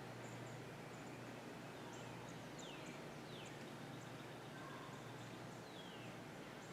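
Faint steady background noise with a low hum, and three or four short, falling bird chirps.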